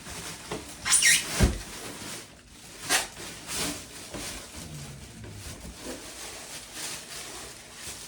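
Cardboard box and foam packing being handled and pulled apart: rustling and scraping, with a sharp scrape about a second in and a dull thump just after.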